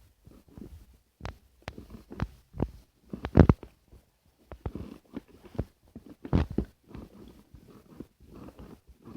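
Hands squeezing and kneading slime: irregular wet squelches and small pops, with the loudest squelches about a third and two-thirds of the way through.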